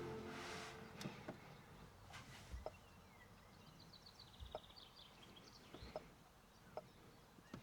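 Near silence with faint bird chirping, a quick series of high chirps in the middle, and a few soft clicks or taps.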